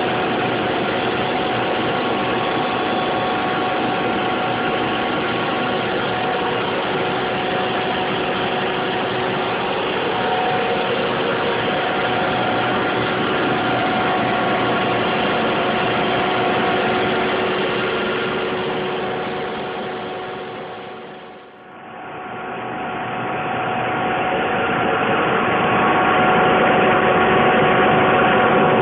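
Rotrex turbo compressor running steadily on steam in a high-temperature heat pump plant: an even rushing machine noise with several steady tones through it. It fades out about 21 seconds in and comes back up in the same steady state.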